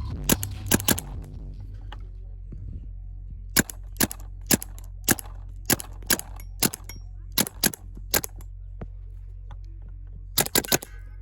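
Paintball marker firing shot after shot, sharp pops: a quick burst at the start, single shots about half a second apart in the middle, and another quick burst near the end.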